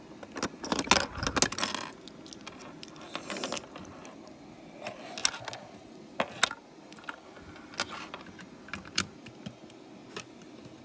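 Plastic clicks and rattles of LEGO bricks and parts being handled: a quick flurry in the first two seconds, then single clicks every second or so.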